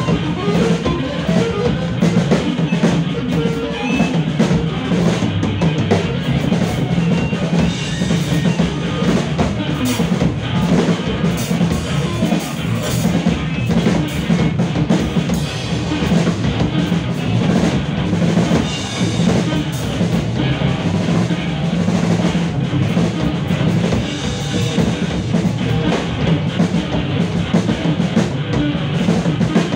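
Music from a trio of modular synthesizer, bass guitar with effects and drum kit: the drums are struck busily and continuously over a steady low held drone, within a dense, noisy texture.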